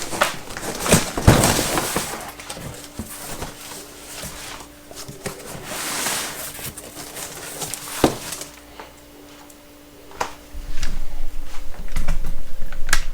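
Cardboard shipping box being moved and opened by hand: cardboard scraping and rustling, with scattered knocks and sharp taps. A faint steady hum runs through the middle.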